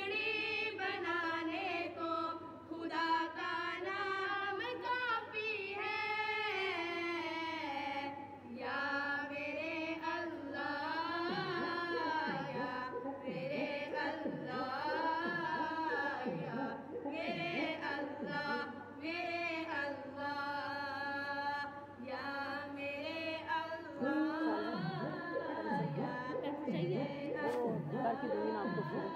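Devotional singing: a voice holding long, wavering, ornamented notes. From about eleven seconds in, a soft low beat repeats roughly once a second beneath it.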